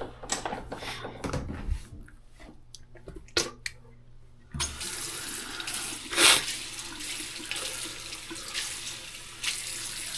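Water running from a tap into a sink, turned on about halfway through, after a few light clicks and knocks. A short sharp noise rises over the running water a little after it starts.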